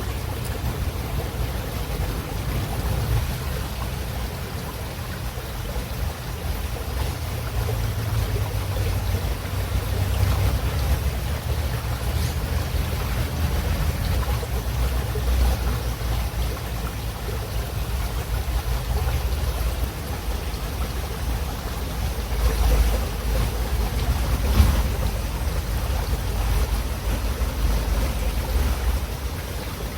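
River water running steadily: a continuous rushing with a deep low rumble that swells and eases, and a couple of brief louder surges about three quarters of the way through.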